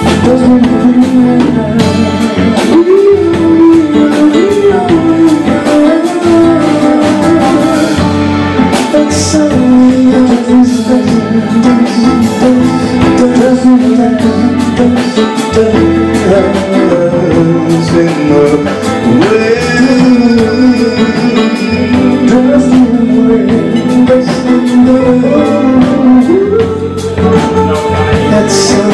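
Male R&B singer singing live into a handheld microphone over instrumental backing, holding long notes with vibrato.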